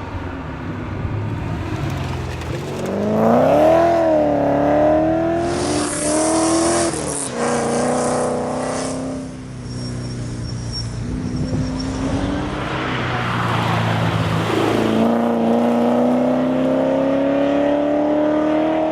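Ford Falcon Pursuit 250 ute's engine accelerating hard. The pitch rises and falls back a few times as it changes gear, holds lower for a while, then climbs steadily over the last few seconds. A high hiss runs through the middle.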